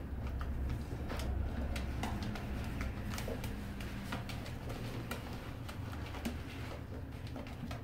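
Dachshund puppies' claws clicking and scratching irregularly against a plastic laundry tub as they scramble up its sides, over a steady low hum.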